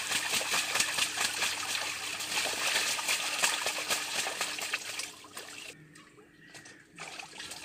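Domestic geese splashing as they bathe in a small brick-walled pool, with a rapid run of splashes. The splashing dies down about five and a half seconds in.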